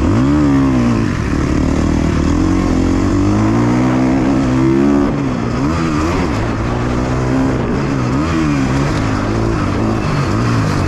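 KTM 350 XC-F's single-cylinder four-stroke engine under hard riding, its pitch climbing sharply at the start and then rising and falling again and again as the throttle is opened and closed through the gears, with a marked drop about five seconds in.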